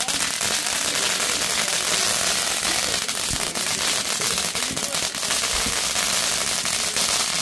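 Ground fountain fireworks spraying sparks, a steady hissing rush dense with fast crackles.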